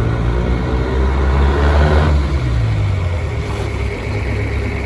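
GAZ-63 truck with a swapped-in Mercedes engine driving, the engine getting louder and higher as it accelerates about two seconds in, then easing off.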